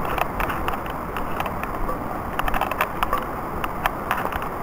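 Steady rush of a rain-swollen brook running in white water, with scattered light crunches and clicks of footsteps on the leaf-littered trail.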